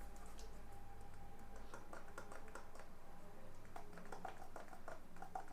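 Faint, irregular light clicks and scratches of a small hand tool working on a phone's circuit board, as the pads left by the removed charging jack are cleaned. The clicks start about two seconds in and come several times a second.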